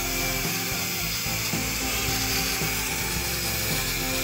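Background music with notes changing in steps, over a steady hiss.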